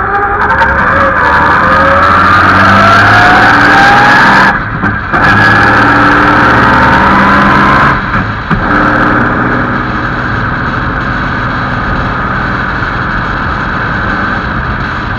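Vintage Bentley racing car's engine under hard acceleration, heard from on the car, its pitch climbing steadily for about four seconds. A brief break in the sound comes, the pitch climbs again, and about eight seconds in the throttle eases and the engine settles to a steadier, quieter run.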